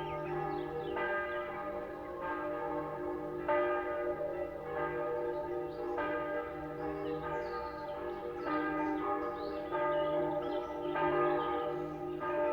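Church bells ringing in a steady peal, a new strike about every second and a quarter, each ringing on under the next. Small birds chirp over the bells.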